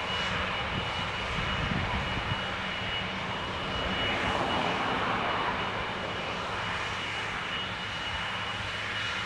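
Airplane engines running as an aircraft passes, the noise swelling about four to five seconds in and then easing off.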